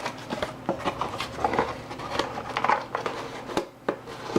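Handling noise as a flimsy cardboard box and a motherboard are moved and set in place: a run of light knocks and clicks with cardboard rustling.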